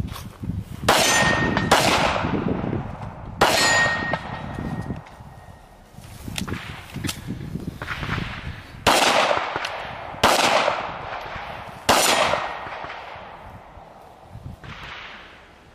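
Handgun shots fired in a USPSA stage: about half a dozen loud, sharp reports at uneven intervals, each with a long fading echo, and a few fainter cracks between them.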